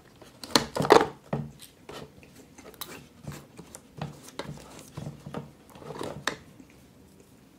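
A cardboard paper-craft vending machine worked by hand. A burst of clicks and rustling comes about a second in as the PUSH button is pressed and a wrapped chocolate is dispensed. Scattered taps and wrapper rustles follow as the chocolate is fished out of the tray, with another short burst near six seconds.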